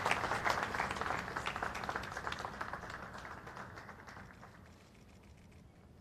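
Audience applause that fades away over about four seconds, leaving faint room noise.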